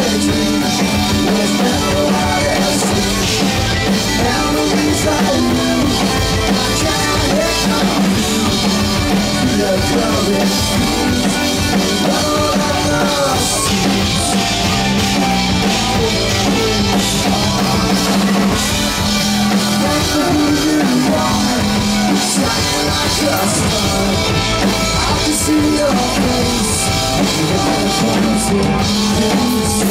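Rock band playing live at full volume, with drum kit, electric guitar and bass.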